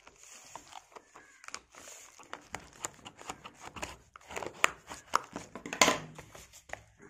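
Bubble-wrap packaging and a cardboard headset box being handled: irregular crinkling and crackling, loudest about six seconds in.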